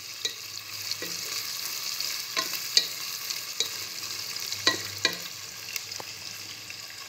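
Shrimp sizzling in hot oil in a pan, with a steady hiss. A wooden spatula stirs them and knocks and scrapes against the pan about once or twice a second, less often near the end.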